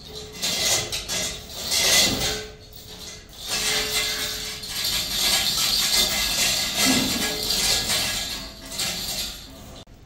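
Irregular metallic clinking and rattling of a hoist chain and steel parts while a lathe bed casting is handled and set up on a machine table, coming in bursts with a short pause about three seconds in.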